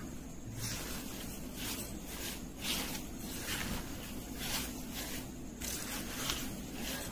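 Silicone spatula stirring crumbly chhena and sugar in a glass bowl: repeated soft scraping strokes, about two a second.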